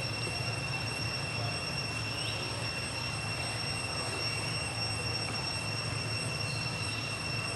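A steady high-pitched whine with a low hum and hiss underneath, unchanging throughout.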